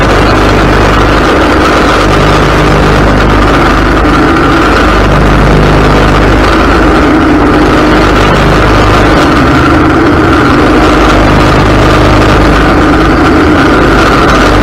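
Ariens riding lawn mower running steadily and loudly while mowing grass, its engine and cutting deck heard close up from a mount on the deck.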